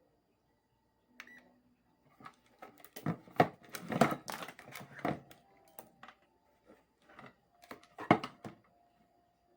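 Clicks and knocks of hands handling a ceiling fan motor and multimeter test leads, densest in the middle, with a short electronic beep about a second in.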